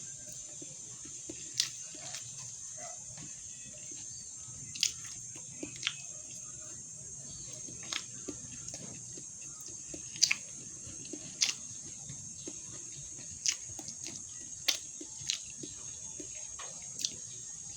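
A person eating a meal: about a dozen sharp, irregular clicks and faint chewing over a steady high-pitched hiss.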